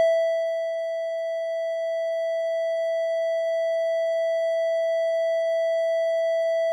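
Software modular synthesizer oscillator (VCV Rack VCO-1) holding one steady, unchanging mid-pitched tone with a few faint overtones. The sample-and-hold is triggered at half the 1 Hz saw's frequency, so it catches the same point of the wave every second cycle and the pitch never moves.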